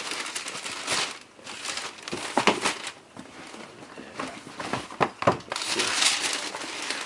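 Paper packing in a sneaker box rustling and crinkling as it is handled, with a few sharper crackles.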